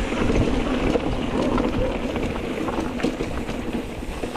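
Wind buffeting the action camera's microphone while a mountain bike rolls fast down a dry dirt trail: a steady rush and rumble of tyres on dirt, with scattered clicks and rattles from the bike over bumps.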